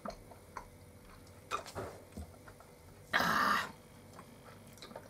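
Drink sucked through straws from small juice cartons: small clicks and sucking sounds, with one loud slurp lasting about half a second a little past three seconds in.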